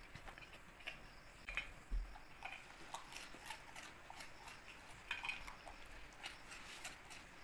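Labradors crunching and chewing biscuits: a scattered series of small, sharp crunches and clicks.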